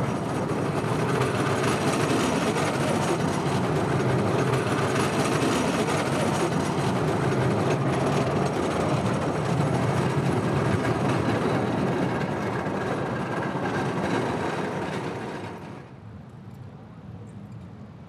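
Electric tram running past at close range: a steady, loud running noise of wheels on rails. It stops abruptly near the end, leaving a much quieter background.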